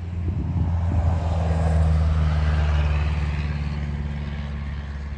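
Diesel freight train passing: a steady low engine drone with a rumble of wagons over it, swelling about two seconds in and then slowly fading as the train moves away.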